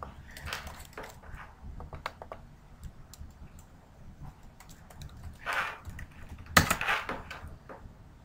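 Typing on a computer keyboard: irregular key clicks, with a louder run of keystrokes about six and a half seconds in.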